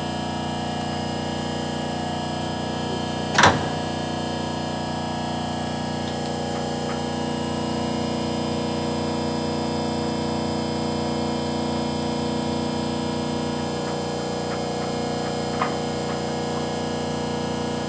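Hydraulic power unit of a 12-ton Denison C-frame press running with a steady hum. There is one sharp knock about three and a half seconds in and a lighter click near the end.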